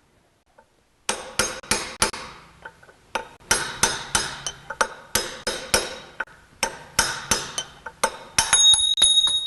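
Hammer blows on a punch driving a steel pinion bearing outer race out of a Ford 9-inch differential's pinion carrier. The sharp metallic strikes begin about a second in and come in quick runs of roughly three a second. Near the end one blow leaves the metal ringing with a clear, sustained tone.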